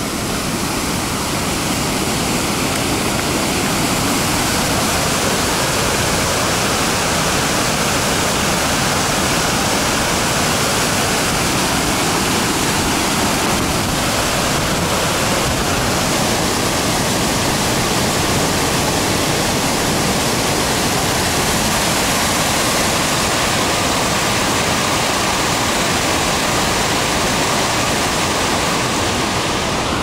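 Mountain waterfall stream rushing steadily over rocks: a loud, even roar of white water.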